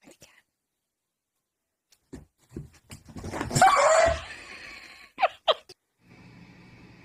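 A dog and a cat scuffling: a few knocks, then a loud hissing burst with a wavering cry about three seconds in, and two short falling yelps about a second later. A steady low hum starts near the end.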